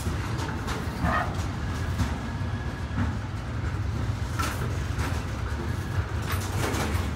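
Freight train of container and tank-container wagons rolling past close by: a steady low rumble of wheels on rail, with occasional sharp clacks and a brief squeal about a second in.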